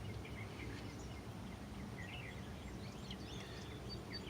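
Faint bird chirps, short and scattered, over a steady low background noise.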